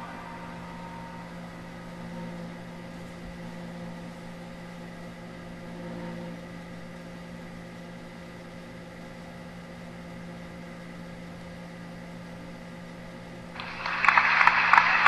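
Steady low hum with faint steady tones under it. About a second and a half before the end, a loud harsh hiss starts abruptly and keeps going.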